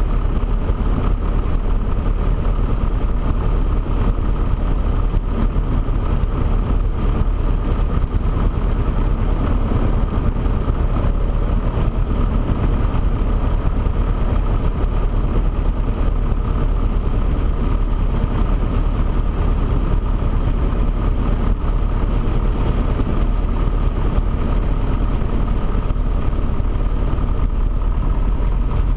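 Piper PA-24 Comanche's piston engine and propeller running steadily at low power while the plane taxis, an even drone with no change in power.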